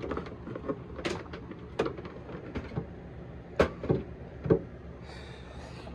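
Scattered knocks and clicks as a bundle of wires and a plastic panel are handled against wooden cabinetry, about six in all, the loudest about three and a half seconds in; a brief soft hiss follows near the end.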